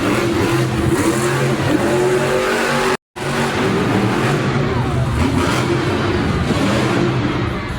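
Monster truck engine running and revving loudly. The sound cuts out completely for a split second about three seconds in.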